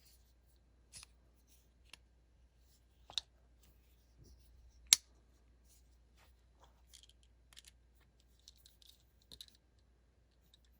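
Scattered small metallic clicks and light scrapes of a folding knife's parts and tools being handled during reassembly, with a sharp click about three seconds in and a louder one about five seconds in.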